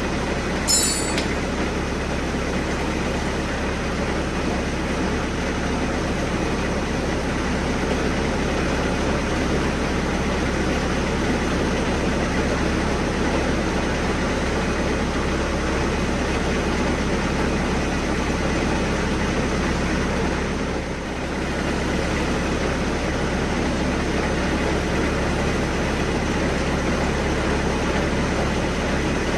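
Bobcat 763 skid steer's diesel engine running steadily, with a brief high squeal about a second in.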